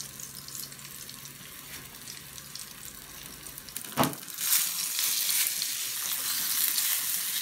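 Flour-dredged mackerel frying in oil in a frying pan, with a steady sizzle. About four seconds in there is a short sharp sound, and the sizzle is louder after it.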